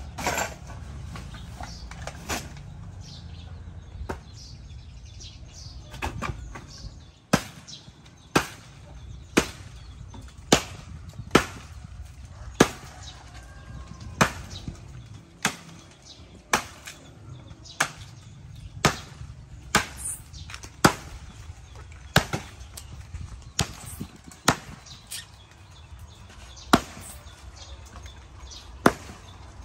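Machete chopping into the base of a dead jackfruit tree trunk, sharp wood-striking blows at about one a second, starting about a quarter of the way in. Before the chopping begins there is softer rustling and handling noise.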